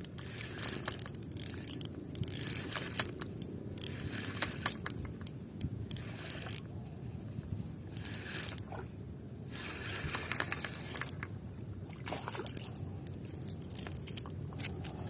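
Ryobi Smurf spinning reel being cranked in short spells of clicking and whirring, over a steady low rumble.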